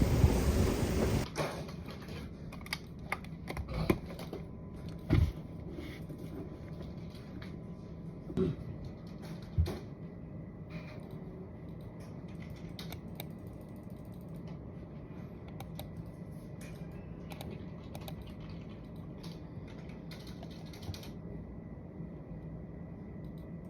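Typing on a computer keyboard: irregular key clicks, with a few louder knocks in the first ten seconds. A loud rushing noise fills the first second or so and cuts off abruptly.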